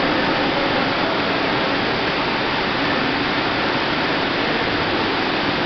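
Steady rushing noise of an Astepo aseptic filler running as product flows into a T-liner bag inside an IBC container.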